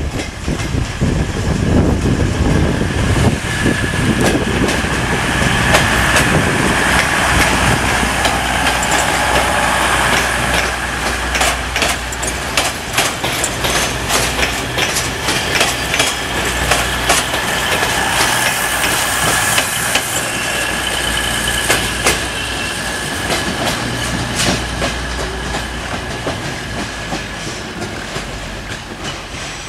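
Ex-DB class 614 diesel multiple unit passing close by: its diesel engines running under load with a steady high whine, and its wheels clicking over rail joints as the cars go past. The sound fades as it runs away near the end.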